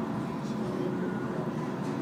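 Tram in motion, heard from inside the passenger car: a steady low rumble.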